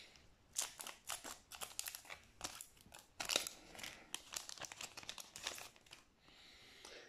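Foil wrapper of a Yu-Gi-Oh! booster pack crinkling in a run of sharp crackles as it is snipped open with scissors and pulled apart, easing to a softer rustle near the end as the cards come out.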